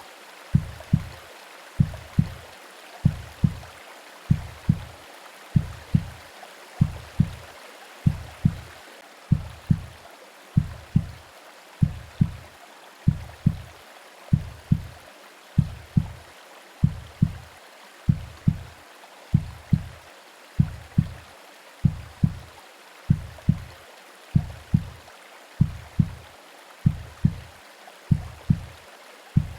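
Recorded womb-style heartbeat: low double thumps (lub-dub) repeating evenly at about one beat a second, over a steady hiss of white noise and rain.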